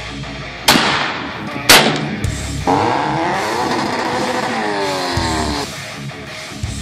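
Heavy rock music with two loud hits about a second apart, then a car engine running hard for about three seconds, its pitch sliding up and down, before it cuts away.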